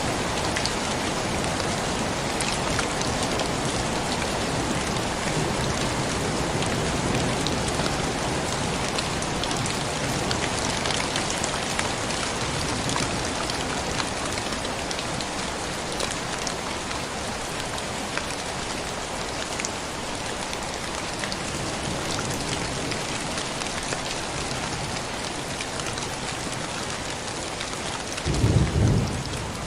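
Steady heavy rain, with individual drops ticking against a surface. Near the end a short, low rumble of thunder rises briefly above the rain.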